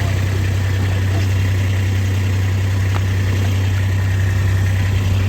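A motor vehicle's engine idling steadily, an even, constant hum.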